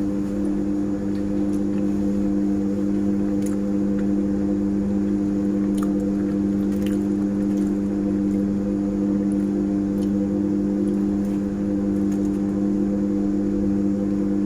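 A steady low machine hum that holds one unchanging pitch throughout, with a few faint clicks of a metal knife against a plate.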